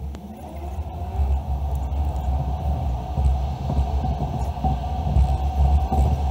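A car's road and engine rumble heard from inside the cabin while driving: a steady, deep, muffled drone.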